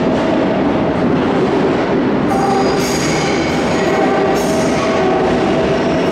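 Madrid Metro Line 10 train running through the station with a loud, steady rumble. From about two seconds in, high-pitched squealing tones come and go over it.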